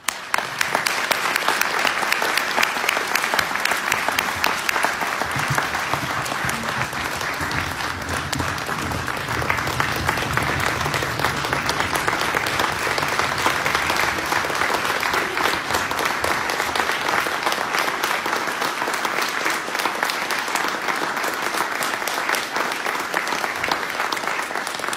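Audience applauding, dense steady clapping that breaks out suddenly and eases slightly near the end.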